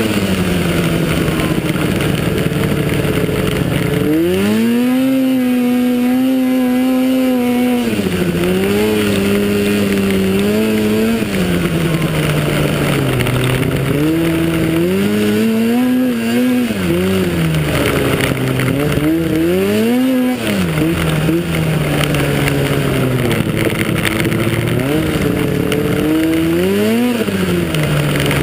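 Arctic Cat snowmobile engine heard from onboard under race throttle: its note repeatedly climbs and falls as the throttle is worked. It is held high for a few seconds starting about four seconds in, over a constant rush of track and snow noise.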